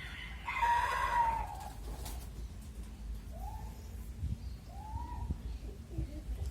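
Chickens calling: one loud call about half a second in, lasting about a second, then a few softer short calls that rise and fall.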